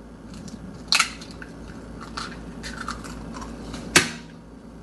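An egg being cracked with a fork: two sharp taps on the shell, one about a second in and one near the end, with small crackles of shell between.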